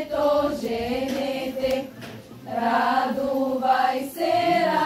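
A group of lazarki, young women and girls, singing a Bulgarian lazarki ritual song together in two phrases, with a short breath about two seconds in.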